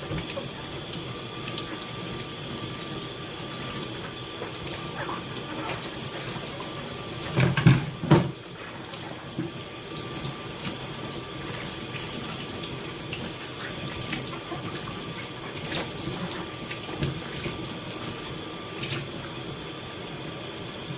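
Kitchen tap running steadily into a sink, with two loud knocks about eight seconds in.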